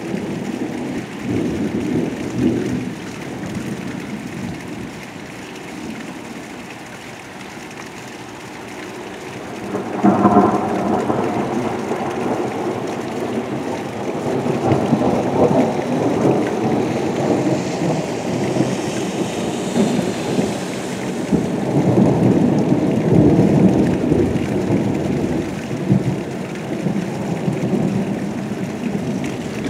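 Thunder over steady rain. A sudden loud peal comes about ten seconds in, then the rumble rolls on and swells again twice.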